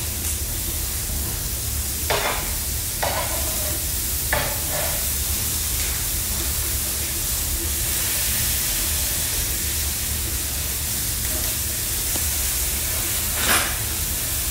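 Slider patties of ground beef and pork sizzling on a hot griddle with a steady hiss, while a metal spatula presses and scrapes them flat: a few short scrapes about two, three and four seconds in, and a louder one near the end.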